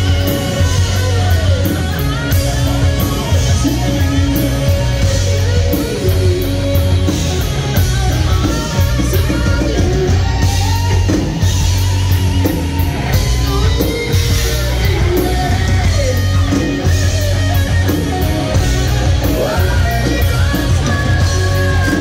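Live rock band playing loud: electric guitar, bass and drums with a singer's voice, the guitar and voice lines bending in pitch over a steady heavy bass.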